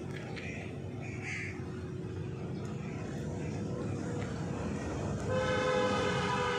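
A low steady rumble, then about five seconds in a vehicle horn sounds one held note for a little over a second.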